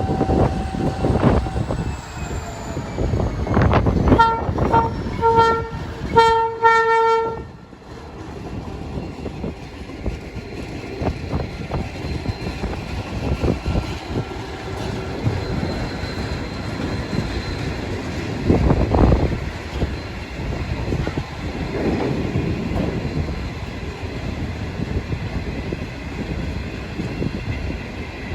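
Train running past on the rails with a continuous rumble and clatter; about four seconds in its horn sounds a couple of short toots and then a longer blast that cuts off suddenly at about seven and a half seconds.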